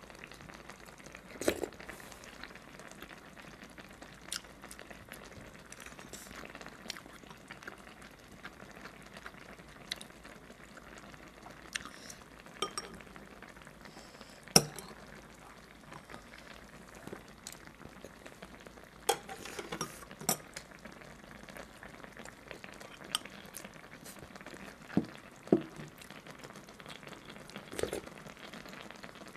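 Eating sounds: a metal spoon and chopsticks clicking and scraping against a pot of braised fish stew, with chewing and sipping, as short scattered clicks over a faint steady hiss.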